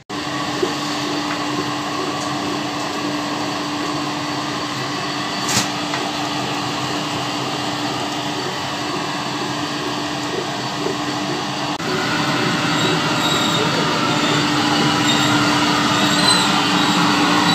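A steady mechanical hum holding one low note over a dense, noisy background, with a single sharp click about five and a half seconds in. The noise grows louder and busier about twelve seconds in.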